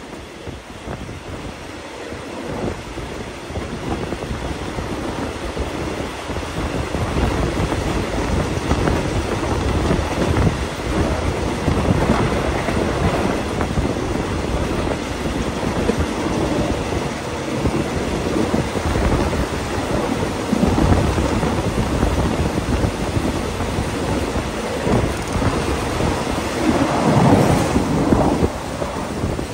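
Diesel-hauled passenger train running along the track, a steady rumble of wheels on rail mixed with wind rushing past an open carriage window. It grows louder a few seconds in and swells again near the end.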